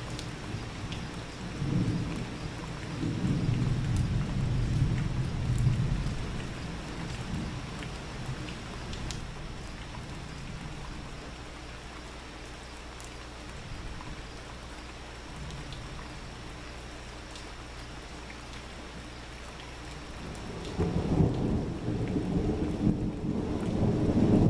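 Rolling thunder over steady rain. A low rumble swells and fades over the first several seconds, and another rumble begins near the end, with scattered raindrop ticks throughout.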